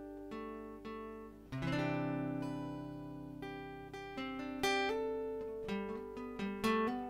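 Solo acoustic guitar played as an instrumental passage: single picked notes ringing out, with a full strummed chord about a second and a half in and more picked notes after it.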